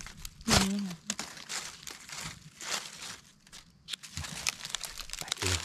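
Dry fallen leaves rustling and crackling as hands pick a mushroom out of the leaf litter. A brief voice sound comes about half a second in.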